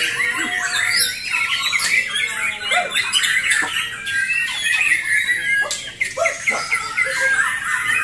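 Many caged white-rumped shamas (murai batu) singing at once in a song contest, a dense, unbroken tangle of quick overlapping whistles, chirps and trills.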